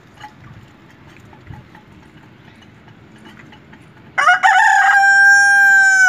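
Rooster crowing, starting about four seconds in: a few short broken notes, then one long held note lasting nearly two seconds.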